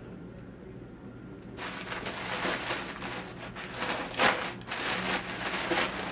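Clear plastic poly bag crinkling and rustling as it is handled and opened around a pair of folded jeans, starting about a second and a half in, with one sharp, louder crackle about four seconds in.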